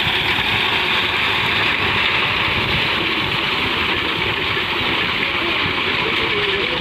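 Tractor engine running steadily under load while its mounted harvesting machine cuts standing wheat.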